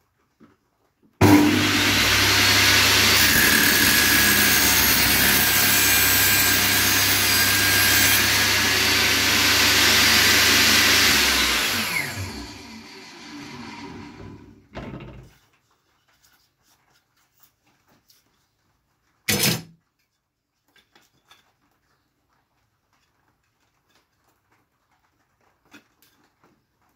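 Einhell TC-TS 2025/2 U table saw switched on with a sudden start, running at a steady speed for about ten seconds, then switched off and winding down in falling pitch until it stops.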